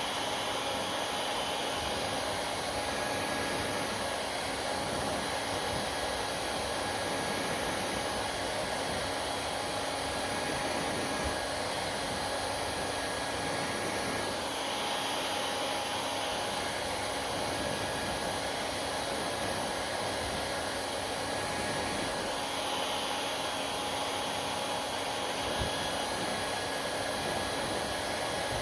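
Hair dryer running steadily: a constant rush of blown air with a faint whine on top, whose pitch shifts slightly twice.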